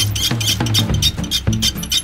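Background music with a steady drum beat, about four ticks a second, over a moving bass line.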